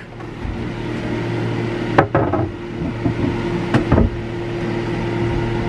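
Plywood lid piece knocking a few times against the water tank as it is set into place: a cluster about two seconds in, two more around four seconds, another near the end. A steady hum runs underneath.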